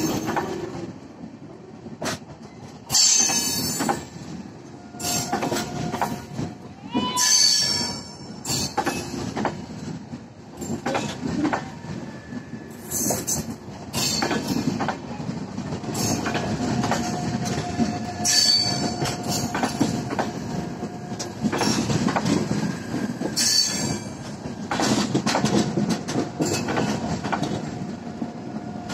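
Indian Railways LHB passenger coaches rolling past close by, their wheels clattering over the rail joints, with a high screech of wheel squeal breaking out every four to five seconds.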